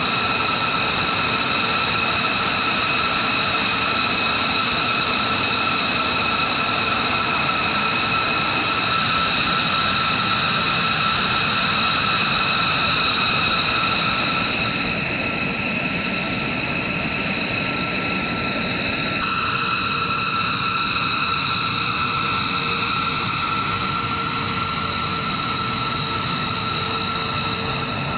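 B-2 Spirit's jet engines (General Electric F118 turbofans) running at idle: a steady high-pitched turbine whine of several tones over a rushing roar, shifting slightly in tone a few times.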